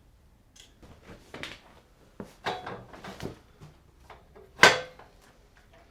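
Knocks and clatter of a motorcycle rear stand being set in place and the bike levered up onto it, with one loud sharp clunk about three-quarters of the way through.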